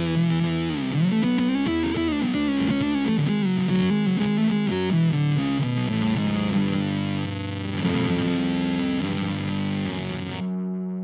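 Electric guitar played through the IK Multimedia X-Drive distortion pedal on a fuzz preset: bending single-note lines, then held, distorted chords. Near the end the high end drops away suddenly, leaving a darker sustained note.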